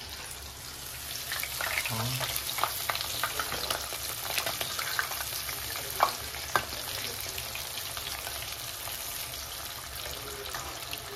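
Tuna pieces frying in hot oil, a steady sizzle and crackle. Two sharp taps stand out about six seconds in.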